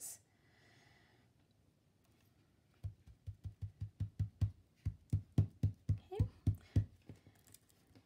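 Fingers patting and pressing glued cardstock layers flat against a tabletop to stick them together: a quick run of soft thumps, about five or six a second, starting about three seconds in and stopping near the end.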